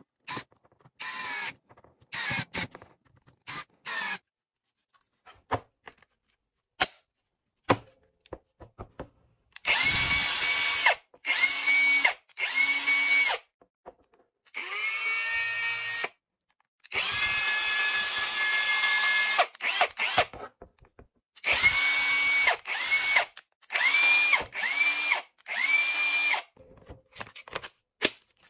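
Cordless brushless impact wrench spinning with no load in about ten short trigger pulls, each run rising quickly to a steady high motor whine and cutting off; a couple ramp up more slowly under partial trigger. The motor draws its power from a DeWalt 20V battery through an adapter.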